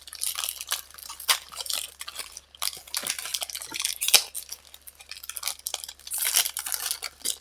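Foil Pokemon booster-pack wrappers crinkling and crackling as they are handled and opened, in a quick irregular run of sharp crackles.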